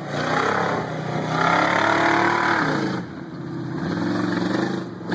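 Mud-covered 4x4 pickup truck's engine revving as the truck drives through a mud pit: the pitch climbs for about a second and a half, falls away about three seconds in, then the engine runs steadily.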